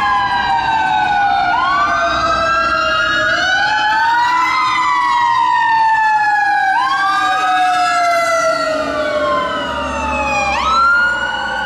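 Loud emergency vehicle sirens passing close by. Several wailing tones rise and fall over one another, one falls slowly throughout, and a sharp upward whoop comes near the end.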